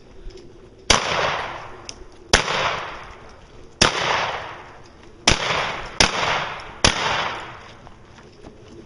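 Six shotgun shots fired one after another at steel targets, the first four about a second and a half apart and the last ones quicker, each followed by a long echoing fade.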